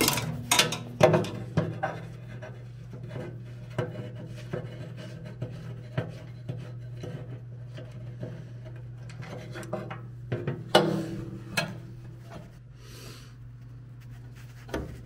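Ratchet wrench working a bolt loose on the hydraulic tank mount of a Genie scissor lift: irregular metal clicks and knocks, with a louder clatter about eleven seconds in, over a steady low hum.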